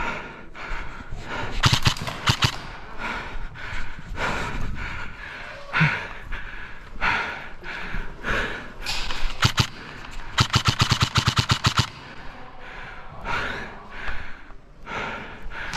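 Airsoft guns firing. There are a few single shots about two seconds in and again around nine seconds, then a rapid full-auto burst of about fifteen shots, about ten a second, lasting a second and a half.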